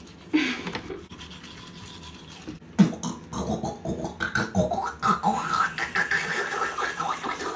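Teeth being brushed with a toothbrush: scrubbing strokes with muffled mouth noises, getting louder and busier from about three seconds in.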